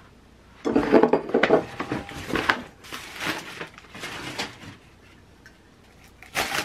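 Honeycomb kraft packing paper rustling and crackling as enamelware is unwrapped, with clinks of an enamel-coated steel plate handled and set on the table. It comes in bursts over the first few seconds and once more near the end.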